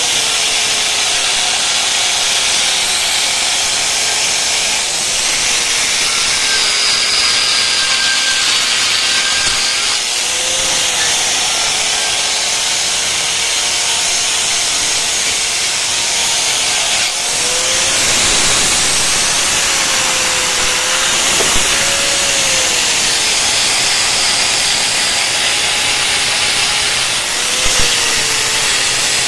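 Electric angle grinder with an abrasive disc running against the steel muffler of a motorcycle exhaust pipe: a steady, loud hissing grind over the motor's whine, which wavers a little in pitch as the disc works the metal.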